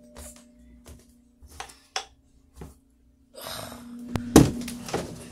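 Hands rummaging through towels and soft toys: scattered rustles and light knocks, a longer rustle about three and a half seconds in, then a louder bump, over a steady low hum.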